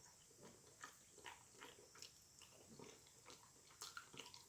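Faint, wet chewing and lip-smacking of a person eating soft, cheesy fries close to the microphone: a string of small, irregular clicks and smacks.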